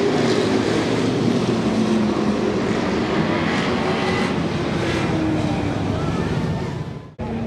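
Race truck engines running hard as the trucks pass at speed on a paved short oval, the engine pitch dropping as a truck goes by. The sound cuts off abruptly near the end.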